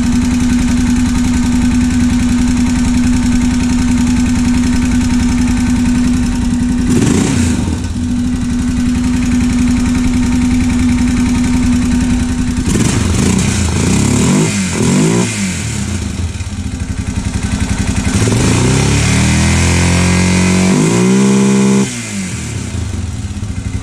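Honda 650 motorcycle engine idling steadily, then revved: a quick blip about seven seconds in, a few short blips a little later, and a longer rev that climbs and falls near the end before it drops back to idle. Freshly changed oil after running low and dirty, it still has a noise that is "not horrible", a mid-engine "tunka" that the owner suspects comes from the valves or the timing chain.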